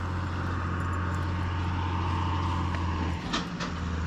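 A steady low mechanical hum, like an engine or traffic, with a short dip and two sharp clicks a little after three seconds in.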